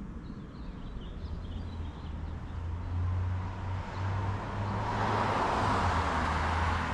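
A car driving past on the street, its low engine hum and tyre noise swelling over the last couple of seconds. Small birds chirp faintly near the start.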